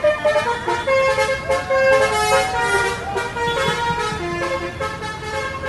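Bus's multi-tone musical horn sounding a run of changing notes, held notes stepping and gliding from one pitch to the next.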